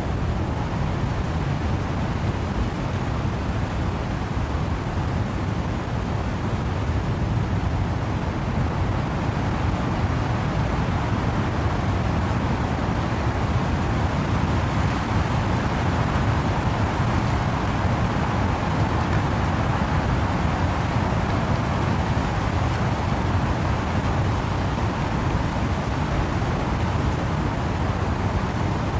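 Wind-driven rain and wind through trees: a dense, steady hiss with a deep low rumble, no separate drops or gusts standing out.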